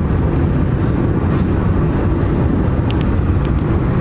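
Steady low road rumble inside a moving car, from tyres and engine, driving on an unpaved country road, with a few faint ticks near the end.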